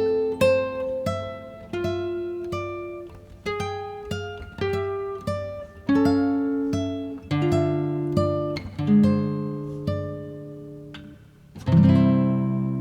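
Background music: an acoustic guitar picking a melody one note at a time. Near the end it strikes a fuller chord that rings out and fades.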